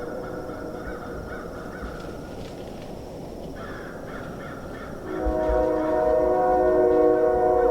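Train horn sounding a held chord of several steady notes: it dies away at the start, then blows again loudly about five seconds in. Crows caw in the gap between the blasts.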